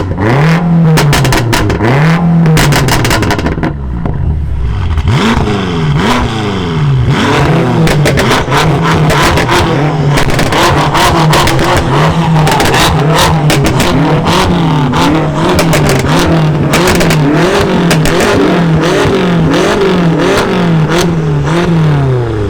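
A modified BMW performance car's exhaust as the engine is blipped over and over, rising and falling about once a second. Sharp pops and crackles come out of the exhaust between the revs.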